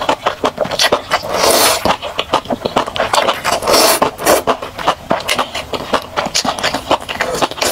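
Spicy noodles being slurped and chewed: wet sucking swells, the strongest about one and a half seconds in and again about four seconds in, among rapid smacking clicks of the mouth.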